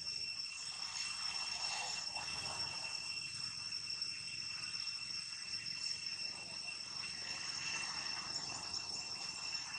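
Steady high-pitched drone of insects in the surrounding forest, one unbroken whine with a fainter, higher line above it.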